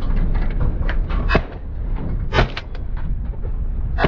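A vehicle moving over rough ground: a steady low rumble with three sharp knocks and rattles from the body, the loudest about two and a half seconds in.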